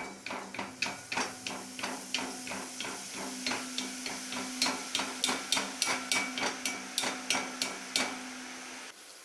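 Metal idiyappam mould tapped again and again against the rim of a frying pan to shake boondi batter through into hot oil. The taps are sharp, about three a second, and stop about nine seconds in.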